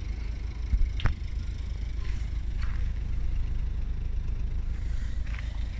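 Ford Focus hatchback running at idle, a steady low exhaust rumble heard at the tailpipe, with a sharp click about a second in.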